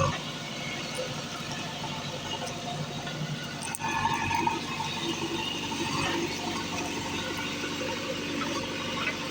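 JCB backhoe loader's diesel engine running steadily as the machine works.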